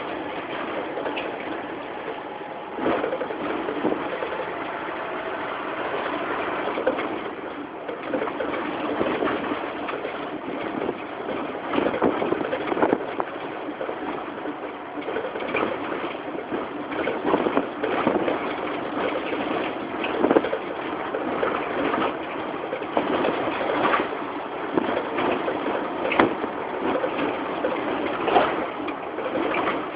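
Cabin noise inside a moving minibus: the engine running under road noise, with frequent short, irregular knocks and rattles from the body over the street.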